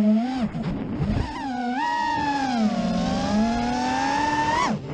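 FPV quadcopter's brushless motors whining, the pitch sliding up and down with the throttle. About a second in the pitch dips low and breaks up, and just before the end it falls sharply.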